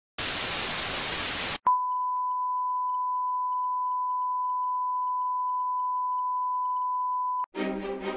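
A burst of television static hiss, then a click and a steady high test-pattern beep, the tone that goes with colour bars, held for about six seconds before it cuts off. Music starts near the end.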